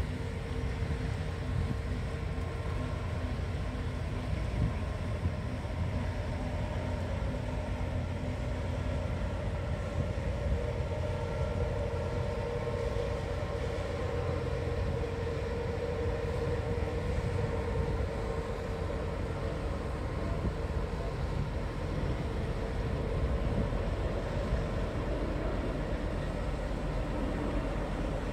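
Diesel engines of a passing river cruise ship running: a steady low rumble with a hum that grows loudest mid-way as the ship goes by.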